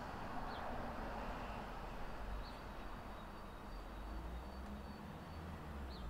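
Outdoor background ambience: a low steady rumble and hiss, with a few faint short high chirps.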